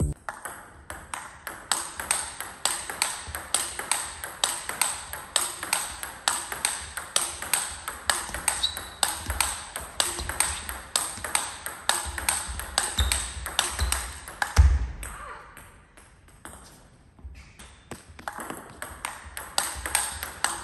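Table tennis rally: the celluloid ball clicks sharply off the bats and table about four times a second. A heavy low thump comes past the middle, then play stops for about two seconds before a new rally starts near the end.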